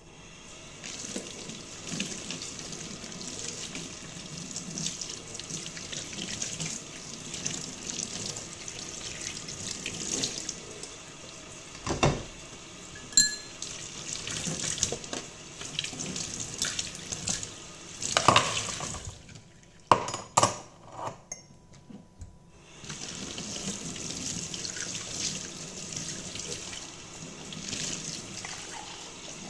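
Kitchen tap running into a sink during hand dishwashing. Now and then a plate or mug knocks against the sink or other dishes, and these knocks are the loudest sounds. About two-thirds of the way through the water stops for about three seconds, then runs again.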